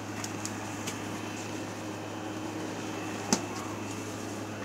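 Electric twin window fan running steadily, a low hum under an even whoosh of air. A few faint clicks, with one sharp click about three seconds in.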